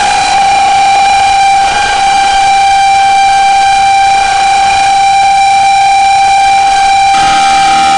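Drone and harsh-noise music: a loud, steady droning tone held over a constant wash of noise, with more tones joining about seven seconds in.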